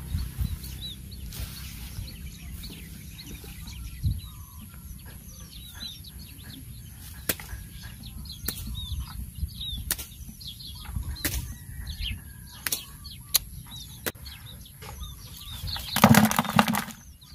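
Small birds chirp over and over throughout, with scattered sharp clicks. Near the end comes a loud, brief thrashing and splashing as live fish, mud and weeds are shaken from a mesh fish trap into a plastic bucket.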